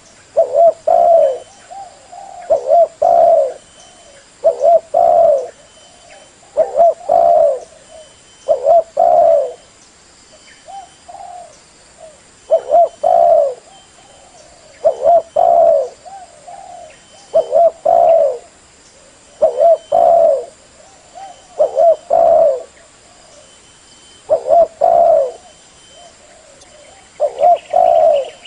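Spotted dove cooing over and over, each phrase a few low, rolling coo notes, repeated about every two seconds with a couple of brief pauses.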